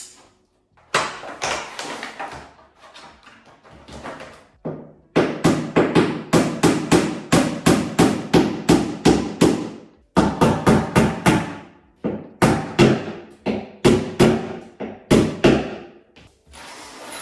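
Repeated sharp knocks of a tool striking the wooden parts of an IKEA Kallax shelf during assembly. The knocks come in runs of about three a second, with short pauses between runs.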